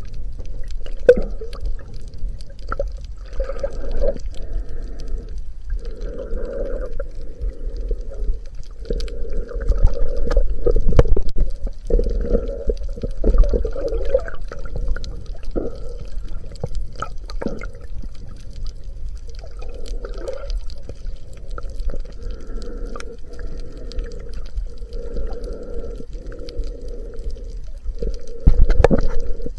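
Underwater sound picked up through a chest-mounted camera's waterproof housing: the snorkeler's breathing through the snorkel, a rush every couple of seconds, over a steady low rumble of moving water and scattered sharp clicks.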